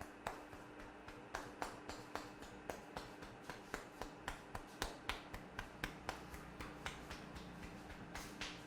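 A barber's hands striking the head or back in quick percussive massage strokes, a run of sharp slaps and claps about three to four a second, somewhat uneven.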